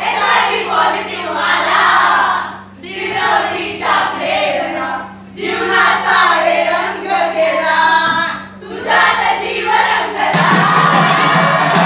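A group of young performers singing or chanting together in unison, in phrases of two to three seconds with short breaks between them. Near the end the sound becomes denser and more continuous.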